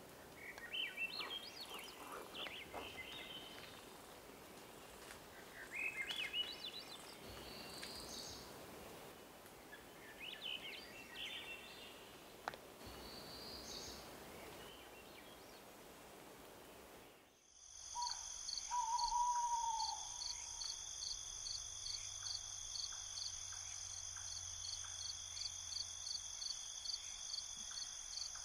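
A songbird singing a short, quick phrase three times, about five seconds apart, over faint forest background. Then the sound cuts to a steady night insect chorus, a shrill trill pulsing two to three times a second, with one short, lower call just after it begins.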